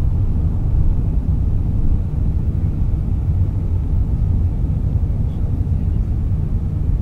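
Steady low rumble of an Airbus A380's four Rolls-Royce Trent 900 engines at climb power, together with airflow noise, heard inside the cabin during the initial climb after takeoff.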